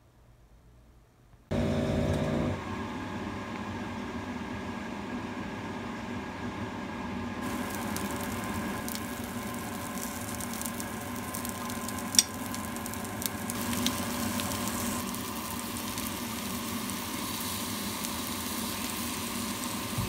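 Strips of fish cake, egg and ham sizzling in a nonstick grill pan, starting suddenly about a second and a half in, over a steady hum. A couple of sharp clicks come about halfway through.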